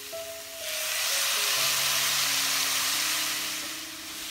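A tablespoon of rice wine hits a hot wok of stir-fried pork and bamboo shoots and sizzles in a sudden hissing rush about half a second in. The sizzle fades out over about three seconds.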